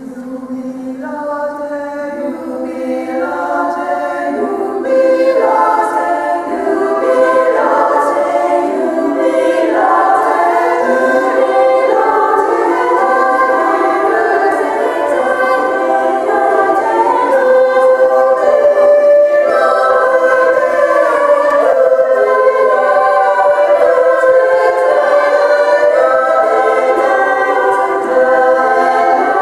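Women's choir singing a cappella in several parts. It starts soft and swells to full voice over the first five seconds, then holds steady.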